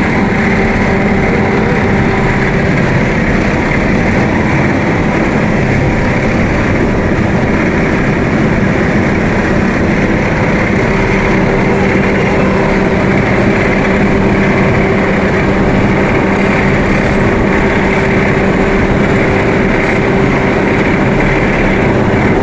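Asphalt paver running: a loud, steady diesel engine and machinery noise with a constant low hum.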